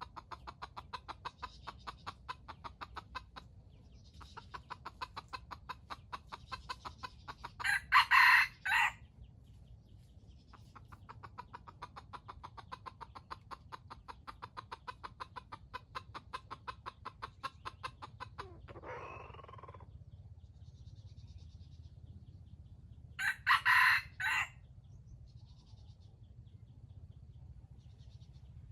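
A rooster crowing twice, each crow about a second long, about 8 seconds in and again near 24 seconds. Between the crows runs a fast, even pulsing call in long stretches, and a short rising call comes just before 20 seconds.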